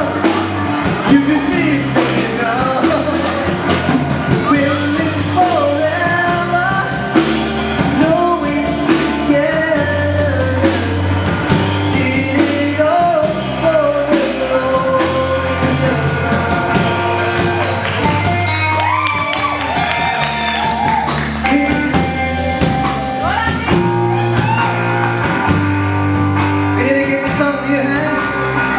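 Live rock band playing: a man singing into a microphone over electric bass, guitar and drum kit.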